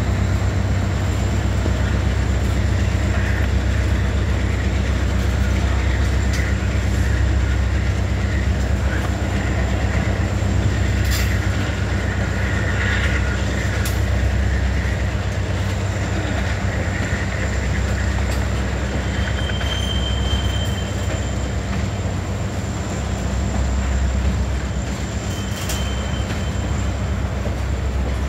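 Freight cars of a manifest train rolling past: a steady heavy low rumble with wheel squeal and a few sharp clanks, and brief high squeals twice in the second half.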